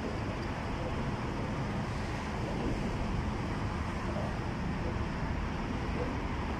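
Steady rumble of road traffic on the elevated highways, an even wash of noise with no distinct events.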